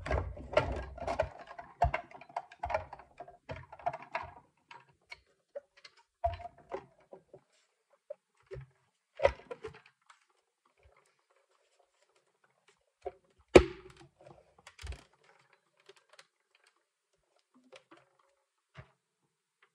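Hard plastic top cover of a Goal Zero Yeti 150 power station being fitted back onto its case: a run of small clicks and rattles for about four seconds, then scattered separate knocks, the loudest about halfway through.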